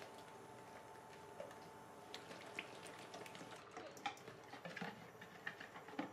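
Wire whisk clicking and scraping against a plastic mixing bowl while beating a thin egg-and-milk batter; faint, light clicks that come more often from about two seconds in.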